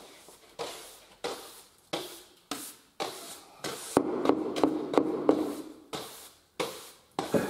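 Long-handled sweeping brush sweeping router dust across a laminate floor: a brisk swish with each stroke, roughly every half second or so, with a denser stretch of small taps about four seconds in.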